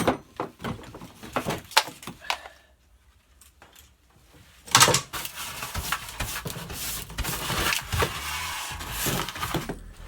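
Workshop handling noises: a few knocks and clatters, a brief near-quiet gap, then a sharp knock about five seconds in followed by continuous scraping and rustling with scattered clicks.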